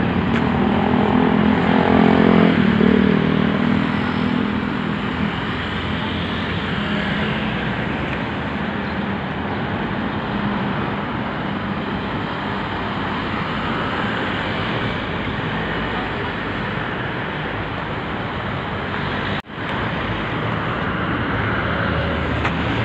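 Outdoor street traffic noise, with a motor vehicle's engine running past loudest in the first few seconds.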